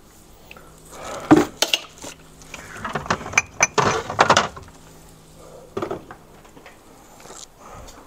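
Kitchen items being handled and knocked about: scattered sharp clinks and clatters, with a busier cluster around the middle.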